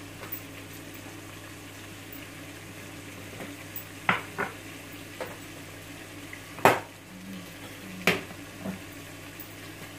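A stainless-steel spice box and its lid being handled and opened: a run of sharp metal clanks and clinks in the second half, the loudest about two-thirds of the way through, over a faint steady hum.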